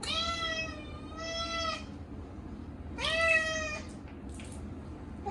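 Short-legged Munchkin cat meowing loudly in protest at being bathed: three long, drawn-out meows, the first two close together and the third about a second later.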